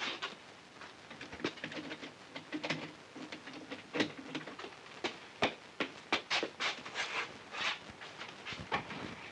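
Footsteps and irregular clicks and knocks of a cell door's lock being worked and the door swung open, the sharpest knock about four seconds in.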